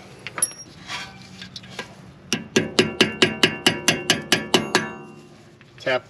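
Hammer tapping a pad retaining pin into a Brembo M-Sport brake caliper: a quick run of about a dozen metallic taps, roughly five a second, each leaving a short ring from the metal. A few light clicks of metal parts being handled come first.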